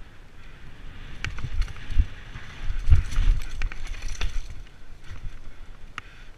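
Mountain bike riding down a dirt forest trail: tyres rolling and skidding on dirt, with the bike rattling and clicking over bumps and low thumps, heaviest about three seconds in.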